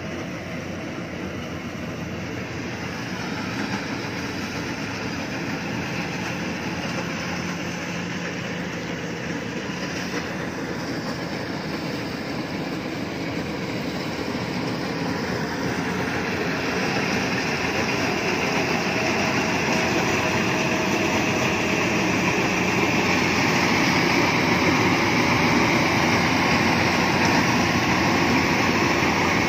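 Iseki HC80 rice combine harvester running steadily while harvesting, a dense mechanical noise that grows louder in the second half.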